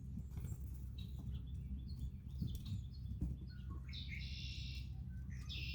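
Wild songbirds singing: scattered short chirps, then a full song phrase about four seconds in, another starting near the end, over a steady low rumble.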